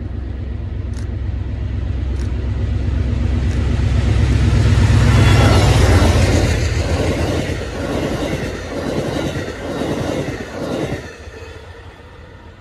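Amtrak passenger train led by a GE Genesis diesel locomotive passing at speed. The engine's low rumble builds to its loudest about five seconds in as the locomotive goes by. The coaches' wheels then clatter in quick runs of clicks, and the sound drops away about a second before the end.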